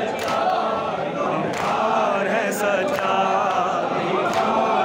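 A crowd of men chanting a noha, a Shia lament, together, with a few sharp strikes heard over the singing at irregular moments.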